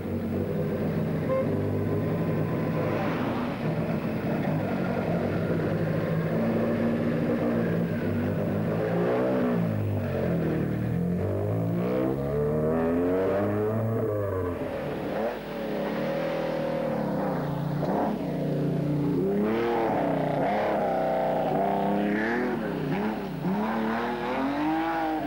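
Rally car engine, at first running at a fairly even pitch, then revving hard again and again from about a third of the way in. The pitch sweeps up and falls back as the car accelerates and changes gear.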